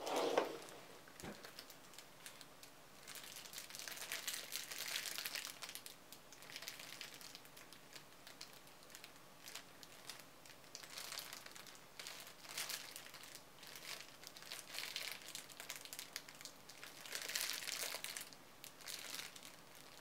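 Clear plastic bag crinkling in irregular bursts as it is handled and squeezed around a foam donut squishy, with one brief louder sound at the very start.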